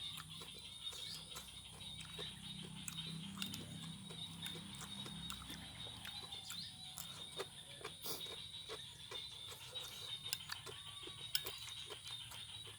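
Close-up chewing of raw vegetable salad, with frequent short crunches and wet mouth clicks.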